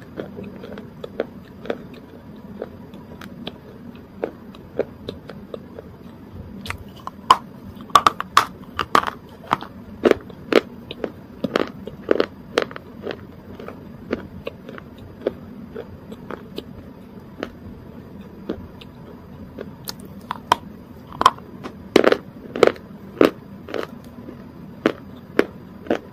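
Close-miked chewing and mouth sounds: irregular sharp crunchy clicks and smacks, busiest around a third of the way in and again toward the end.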